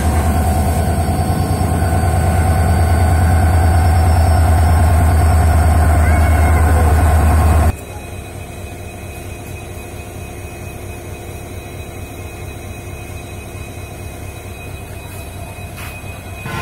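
EMD-built diesel locomotives (WDG4D and WDP4D) idling. A loud, close, throbbing low engine rumble drops away suddenly about eight seconds in to a quieter steady hum with a thin high whine.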